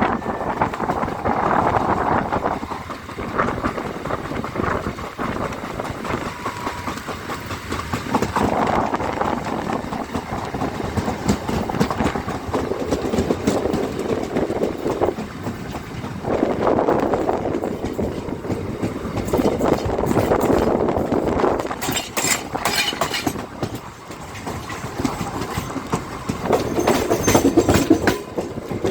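Train wheels rolling along the rails close by: a continuous clattering rumble with the clickety-clack of the wheels over the track, swelling and fading in loudness as the cars pass.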